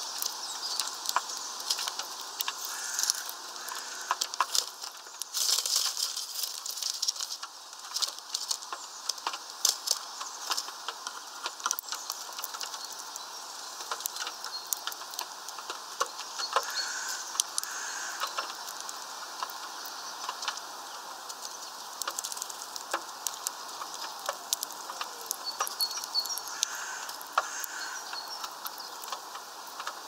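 European greenfinches pecking at a tray of sunflower seeds: a steady run of small sharp clicks and taps as beaks crack seeds and husks rattle on the tray, with a few brief bursts of high bird chirping.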